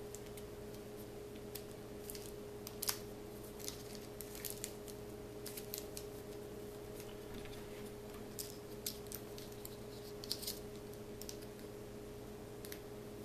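Paper rustling with scattered small taps and clicks as a rolled paper cartridge tube is handled and shaped by hand, over a steady low hum.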